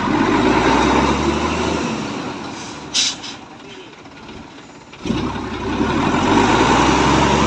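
Heavy truck's diesel engine revving under load as it tries to pull away on a slippery road, easing off after about two seconds. A short, sharp hiss of air from the brakes comes about three seconds in, and the engine revs up again from about five seconds.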